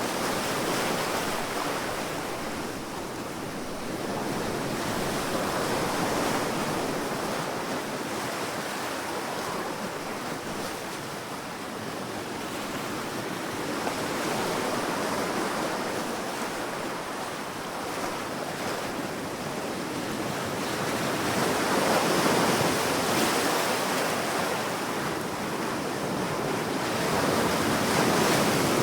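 Sea waves breaking and washing on a beach, a continuous surf roar that swells and ebbs every several seconds, with louder surges about three-quarters of the way through and again at the end.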